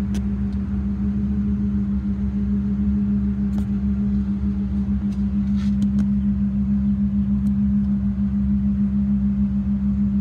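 Engine idling steadily: a low rumble under a strong, unbroken hum, with a few light clicks.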